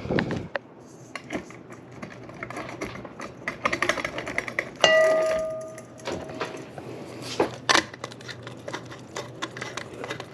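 Light clicking and rattling of small hard parts being handled, with one clear ringing clink about five seconds in that fades over a second or so.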